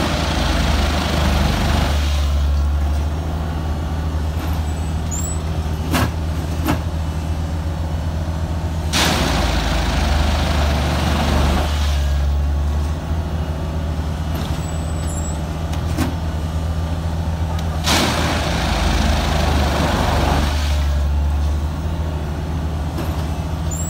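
Multiple tie tamper track machine running with a steady low diesel drone. About every nine seconds, three times in all, a burst of hiss lasting two to three seconds comes with a heavier rumble, and a few short knocks fall in between.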